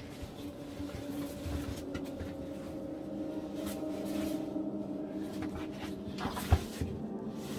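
Scraping and scuffing against rock as someone crawls through a tight cave passage, with small knocks and one sharp knock about six and a half seconds in. A low steady hum of tones lies underneath.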